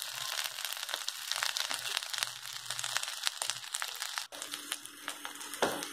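Sliced okra and onion sizzling and crackling in hot oil in a kadhai, shallow-frying before any spices go in. There is one sharper click about four seconds in.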